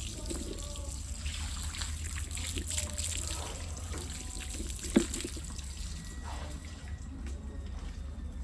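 Water running and splashing over a steady low hum, with one sharp knock about five seconds in.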